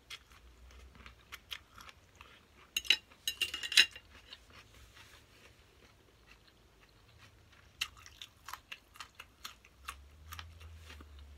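Close-up chewing and biting of a spicy glass-noodle salad with raw vegetables: wet chewing with small sharp crunches and clicks throughout, and a louder cluster of crisp crunches and clicks about three to four seconds in.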